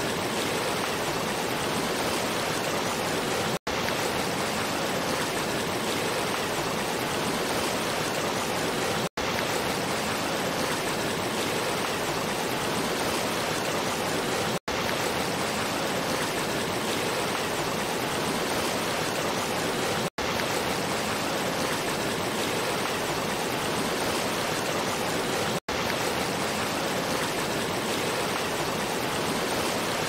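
Steady rushing, churning water with no change in strength. It drops out for an instant about every five and a half seconds, five times in all.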